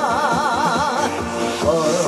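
Live Korean trot music over loudspeakers: a steady drum beat under a melody that holds one note with wide vibrato for about a second, then moves lower.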